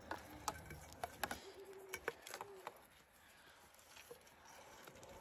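Faint, scattered clicks and rustles of plastic gas pipe being handled and lined up against a riser, mostly in the first two and a half seconds.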